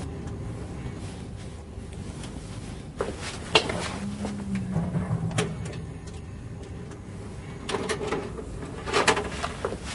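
Scattered sharp clicks and knocks over a low background. Near the end a cluster of mechanical clicks comes from a video cassette recorder being operated by hand.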